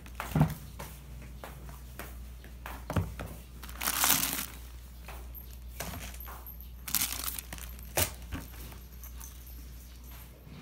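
Plastic shopping bag and packaging crinkling and rustling as things are unpacked and handled, with a few sharp knocks of plastic; the longest rustle comes about four seconds in and the sharpest knock about eight seconds in.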